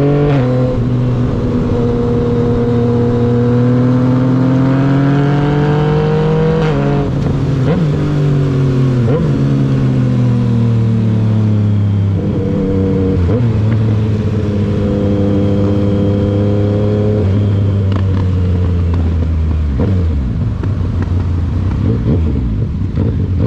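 Yamaha MT-09's inline three-cylinder engine pulling under throttle, its pitch dropping sharply twice, about seven and twelve seconds in, as gears change with the quickshifter. Near the end the engine note falls away and turns rougher as it slows.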